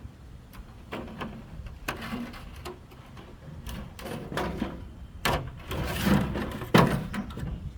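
Workshop handling noise: irregular knocks, scrapes and rustling as materials are moved about, the sharpest knocks near the end.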